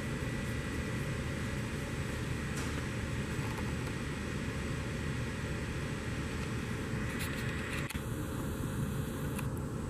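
Steady mechanical running noise with a few light clicks as the rebuilt roller wiper basket spins on its drive.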